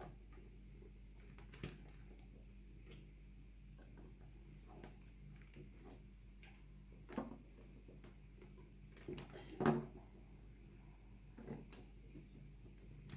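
LEGO bricks being handled and pressed together: scattered light clicks and taps, the loudest about two-thirds of the way through, over a faint steady low hum.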